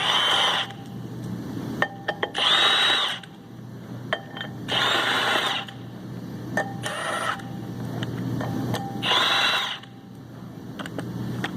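A power tool runs in four short bursts, driving the clutch pressure-plate bolts onto the flywheel, with small metallic clicks of bolts and tools in between.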